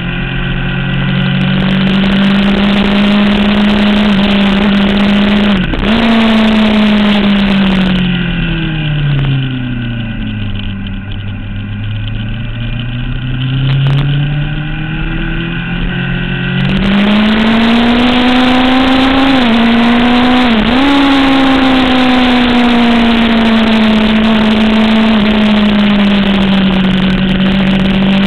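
Sport motorcycle engine heard onboard at racing speed with wind rush. The engine note holds high, falls away for several seconds as the bike slows for a corner, then climbs back under throttle with two brief dips, louder and windier in the second half.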